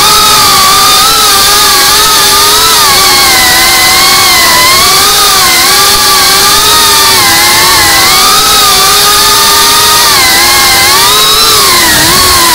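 Geprc Cinelog 35 cinewhoop drone's brushless motors and propellers whining, the pitch constantly rising and falling with throttle as it flies.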